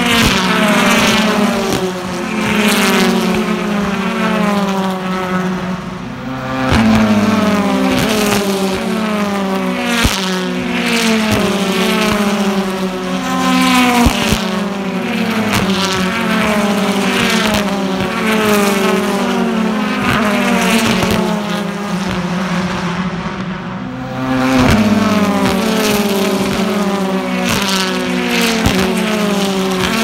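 BTCC touring cars' turbocharged 2.0-litre four-cylinder engines racing past at full throttle, several at once, their pitch climbing again and again as they accelerate and shift up through the gears. The sound swells twice, about seven seconds in and near twenty-five seconds, as more cars arrive.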